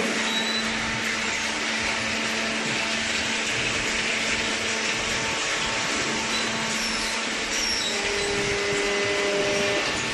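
Hydraulic cardboard baler running: a steady mechanical whir and hiss over a constant low hum, with a second steady tone joining about eight seconds in.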